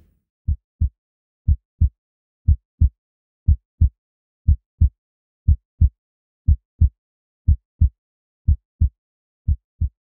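Heartbeat sound effect: low, muffled lub-dub double thumps, one pair a second, ten in all, with silence between.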